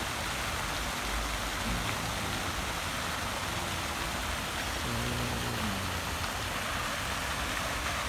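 Spray fountain in a pond splashing steadily, its falling water hissing on the surface like heavy rain.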